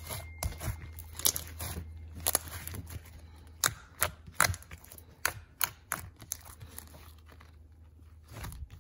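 Slime being kneaded and squeezed by hand, giving irregular sharp pops and crackles as trapped air bursts out of it, several a second at first, then sparser and fainter after about six seconds.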